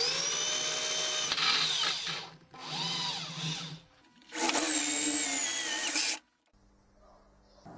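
Hand-held electric drill boring a clearance hole for an M6 bolt through a small aluminium block. It runs in three bursts, its whine rising and falling in pitch, and stops about six seconds in.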